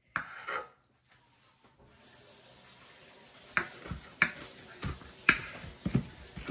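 Water running from a tap into a sink from about two seconds in, with several sharp knocks over it.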